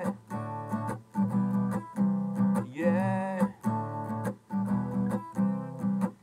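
Acoustic guitar strummed in a steady rhythm, the chords ringing between strokes.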